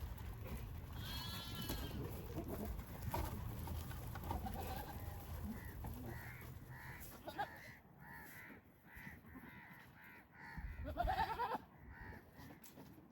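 Goats bleating: one call about a second in and a louder, rising one near the end, with small birds chirping in between.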